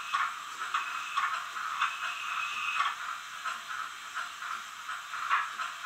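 Zimo sound decoders in two Roco HO-scale BR 52 steam locomotive models playing steam exhaust chuffs and hiss through their small onboard speakers, the chuffs from the two locomotives overlapping unevenly. The sound is thin, with little bass.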